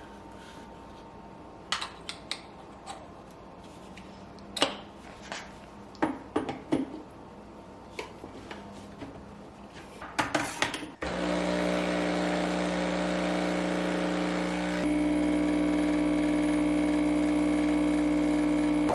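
Cups and utensils clink a few times, then about eleven seconds in a home espresso machine's pump starts, a steady mechanical hum with a fixed pitch, which steps up slightly about four seconds later as the shot pulls.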